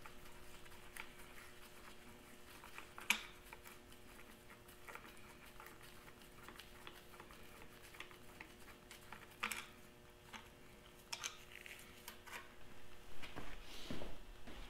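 Faint scattered clicks and light metal taps as small parts on the side of a Farmall Super M engine block are worked by hand, with a sharper click about three seconds in and a busier run of handling noise near the end. A faint steady hum runs underneath.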